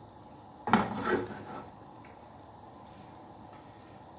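A utensil clatters and scrapes against a frying pan for about a second as a stuffed chicken thigh is turned in cream sauce. After that there is only faint, steady background noise.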